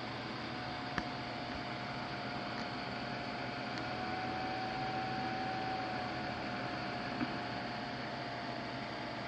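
Steady hiss with a steady whining tone, and a single click about a second in.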